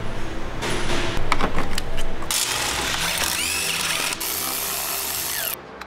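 Stanley FatMax cordless impact driver running in bursts on an engine fastener, its hammer mechanism rattling. Two long runs start about two seconds in, after a few short blips.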